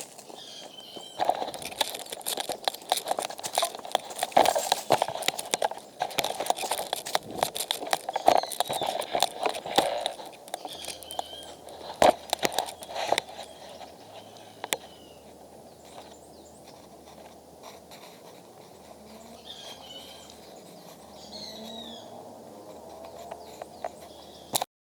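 Irregular crackling and rustling for the first half, then settling into a quieter outdoor background with a few faint bird chirps.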